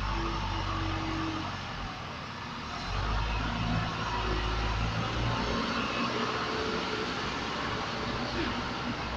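A motor vehicle's engine running steadily, dipping briefly and then growing louder about three seconds in, over outdoor work-site noise.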